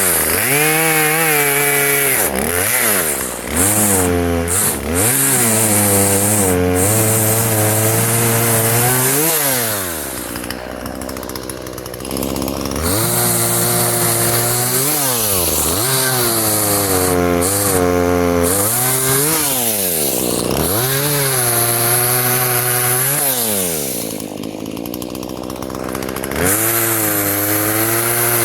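Small two-stroke Husqvarna 120 chainsaw revving up and down over and over as it cuts wood, dropping back to idle for a couple of seconds twice, about a third of the way through and again near the end.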